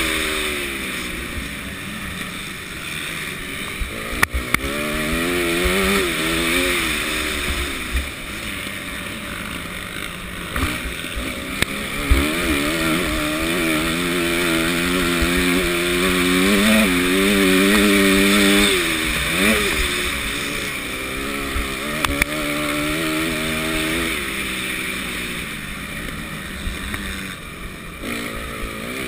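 Motocross bike engine under hard riding, its revs rising and falling again and again, with a rush of noise over it and a few sharp knocks.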